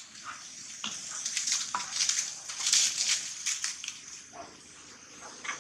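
Dry fallen leaves crunching and rustling in a dense run of quick crackles, loudest in the middle and easing off near the end.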